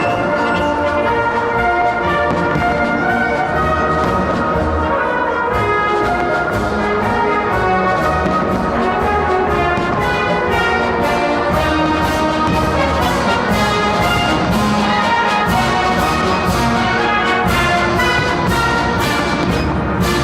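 Orchestral music with brass to the fore, playing held chords over a beat of sharp strokes.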